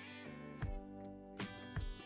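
Quiet background music led by a plucked acoustic guitar, with a few strummed chords under held notes.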